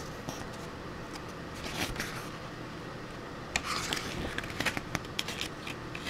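Pages of a glossy photobook being turned by hand: paper rustling in short bursts, a first cluster about two seconds in and a longer, busier run from about three and a half seconds on.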